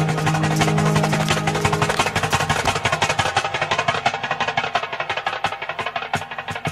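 Background music with a steady percussive beat. Its low held notes drop out about two seconds in, leaving mainly the beat.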